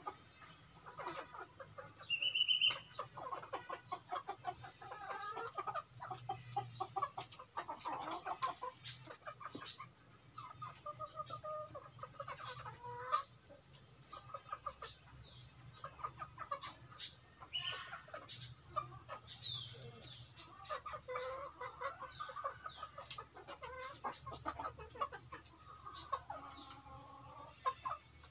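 A flock of ayam kampung (native Indonesian chickens), hens and roosters, clucking and calling. About two seconds in there is one loud, short, high call.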